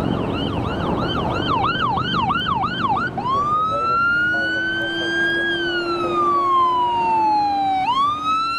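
Fire engine's electronic siren on yelp, fast rising-and-falling cycles about four a second, switching about three seconds in to a slow wail that climbs, falls away and starts climbing again near the end. Engine and road noise underneath.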